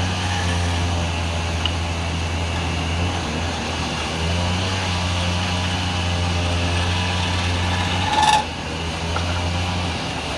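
Wood lathe running with a steady low motor hum and a hiss above it, easing off briefly twice. A short sharp scrape or knock comes about eight seconds in.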